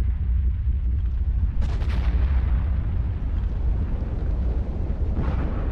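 Underwater explosions in open water: a deep continuous rumble, with a sharp blast about one and a half seconds in and another near the end, each fading off.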